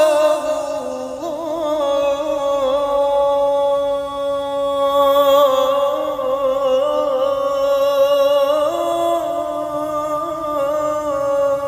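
Solo voice singing an Arabic sholawat unaccompanied, drawing out long melismatic vowels with wavering ornaments on held notes.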